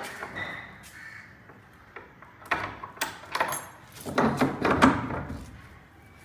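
Metal sliding bolt and lock on a painted wooden door being worked open by hand. Scattered clicks build into a louder spell of metallic rattling about four seconds in.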